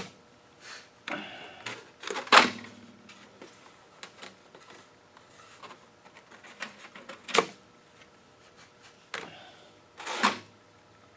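Thin aluminium sheet being pressed down with a wooden board over a rubber spacer to hand-bend an aileron test section: quiet handling noise broken by a few sharp clunks and clicks from the flexing metal and board, the loudest about two seconds in, others around seven and ten seconds in.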